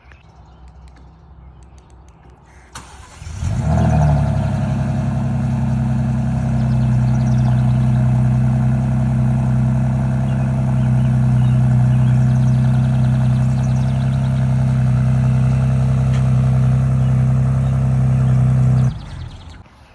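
Ford Bronco Raptor's twin-turbo V6 on its stock exhaust, cold-starting: the starter engages about three seconds in, the engine catches with a brief flare, then settles into a steady cold idle, not that loud, until it is switched off abruptly near the end.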